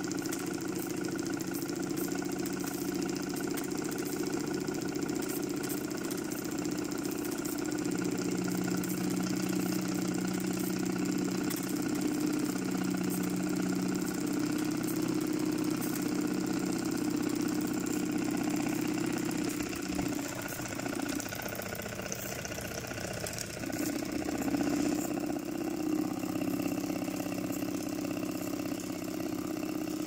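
Sydney S. Bird model stationary steam engine running steadily under steam with an even mechanical hum. Its note weakens for a few seconds past the middle, then settles back.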